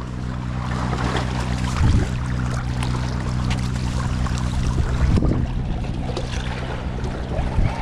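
A steady low motor hum under continuous wind and surf noise on the beach.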